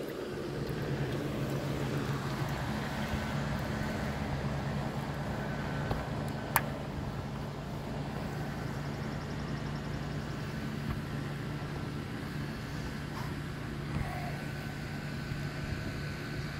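Steady machine hum with a low tone and a faint higher whine, unbroken throughout, with one sharp click about six and a half seconds in.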